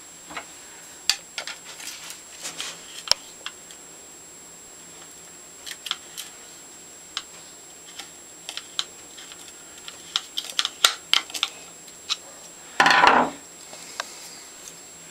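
Metal clicks and clinks from a Stanley No. 113 compass plane being handled and adjusted, its flexible steel sole and linkage knocking and tapping. A louder clatter lasting about half a second comes near the end.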